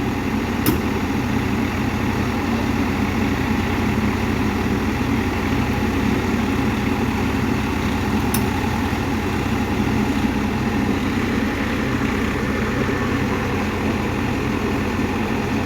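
Heavy machine's engine running steadily at idle, with two sharp clicks, one just under a second in and one about eight seconds in.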